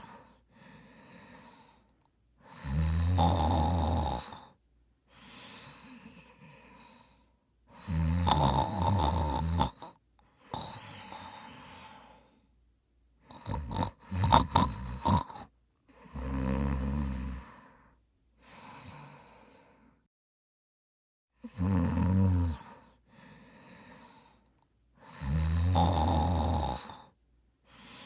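A person snoring loudly: six harsh, rasping snores on the in-breath, each followed by a softer out-breath. About halfway through, one snore comes out choppy and sputtering.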